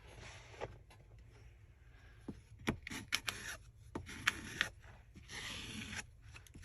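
Plastic kitchen scraper spreading fabric glue over fabric on a craft table: several short scraping strokes mixed with sharp taps and clicks.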